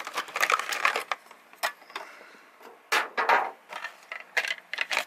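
Crackling and rustling of clear plastic packaging and bagged plastic model-kit parts being handled, in irregular short bursts with light clicks of the parts.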